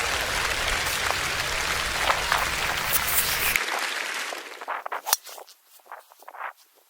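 Wind buffeting a camera's built-in microphone: a loud, steady rushing that cuts off abruptly about three and a half seconds in, followed by fainter scattered gusts and a sharp click, then near quiet.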